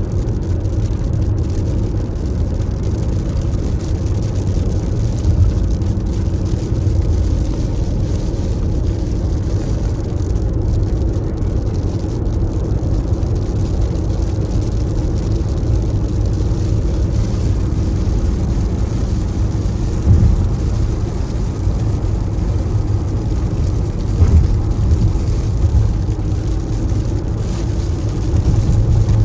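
Steady low rumble of a car driving, engine and road noise, with no sharp events.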